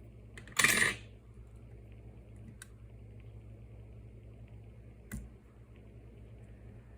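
A small metal object clattering onto a hard work surface about half a second in, followed by two light clicks of small tools over a low steady hum.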